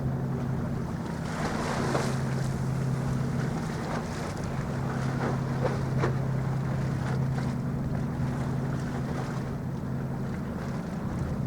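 A ship's engine droning steadily at a low pitch, with gusts of wind buffeting the microphone.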